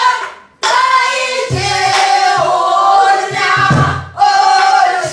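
Pansori singing by several voices in unison, with bending, held notes, accompanied by strokes on buk barrel drums. The voices break off briefly under a second in.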